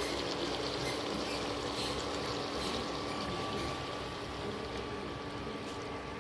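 Palak chicken curry simmering in a steel pan on the stove, a steady hiss with faint crackling, over a steady hum.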